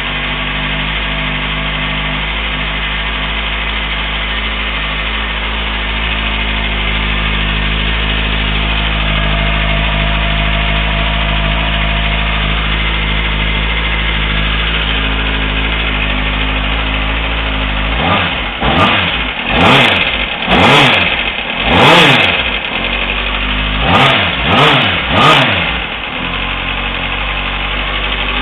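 Kawasaki ZX-6R inline-four engine idling steadily, then revved in about seven quick throttle blips before settling back to idle. It is run to show a weird noise that the owner has heard since dropping the bike.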